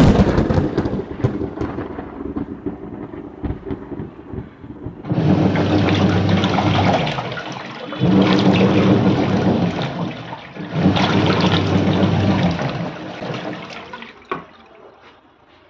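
Semi-automatic washing machine running: water churning and rushing in the tub over a steady motor hum, coming in three surges of about two seconds each.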